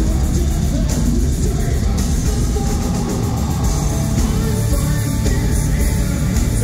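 A rock band playing live, loud and bass-heavy, with guitar, drums and singing.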